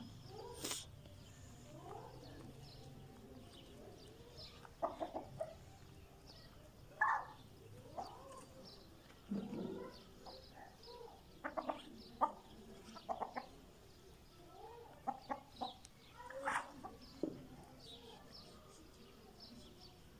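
Backyard local (beldi) chickens clucking, short separate calls from the flock every second or two while they forage.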